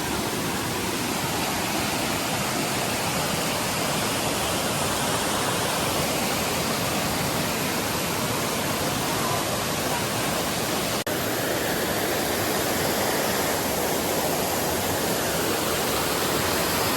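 Steady rush of a waterfall, falling water spread evenly from low to high pitches, with one momentary dip about eleven seconds in.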